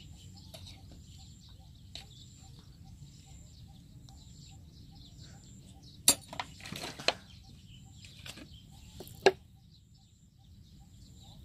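Birds chirping faintly in the background, with a few sharp clicks and knocks, the loudest about six and nine seconds in, as seasonings are added to a bowl of fruit.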